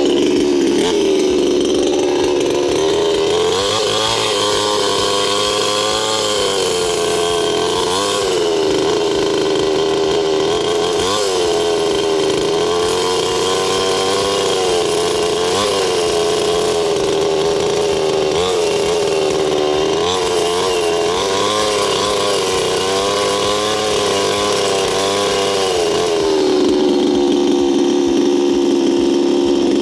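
A two-stroke chainsaw engine running, its revs rising and falling again and again, then holding steadier near the end.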